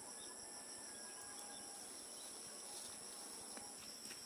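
Steady chorus of insects, several high continuous tones over a faint hiss, with a few faint light ticks near the end.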